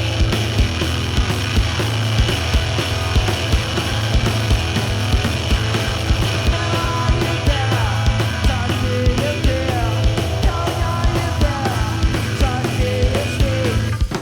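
Live band playing fast rock music with a steady, driving drum beat. A line of bending, sliding notes comes in over it about halfway through.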